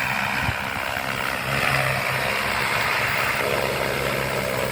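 Multirotor crop-spraying drone's propellers giving a steady buzzing hum, a little louder from about a second and a half in.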